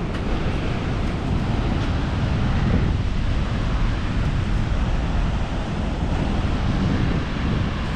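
Steady wind rushing over the microphone, mixed with the wash of ocean surf breaking on the beach.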